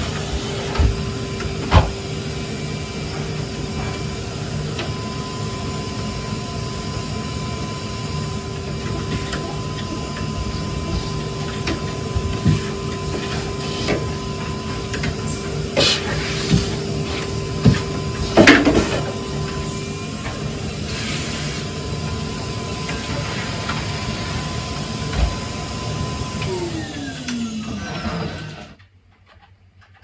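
Upright vacuum cleaner running with a steady whine and occasional knocks. Near the end its pitch falls, then the sound stops.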